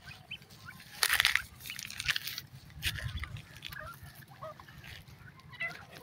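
Grey francolins calling with short, scattered chirps and clucks, with a louder harsh, noisy burst about a second in.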